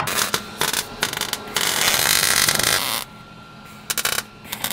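MIG welder welding thin sheet-steel floor pan, crackling in short stitch bursts, with one longer continuous run of about a second and a half in the middle.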